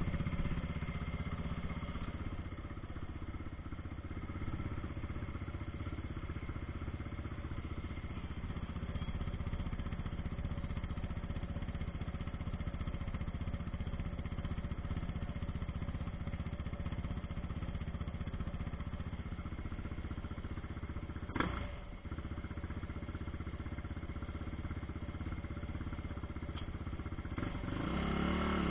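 ATV (quad bike) engine running steadily at low trail speed, with one sharp knock about three-quarters of the way through and the engine revving up near the end.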